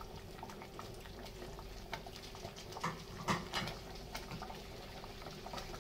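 Rice and water simmering in an aluminium pot, bubbling faintly, with a few soft plops and taps as green chillies are dropped in, over a steady low hum.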